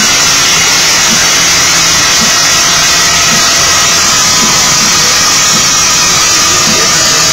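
Yamaha R6 inline-four sport bike engine running at steady revs on a motorcycle dynamometer, a loud constant rush with faint steady tones drifting slightly lower in pitch and no rev sweep.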